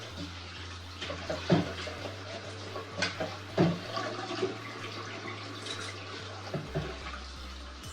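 Kitchen tap running into a sink, with a few sharp knocks of dishes or utensils about one and a half, three and three and a half seconds in.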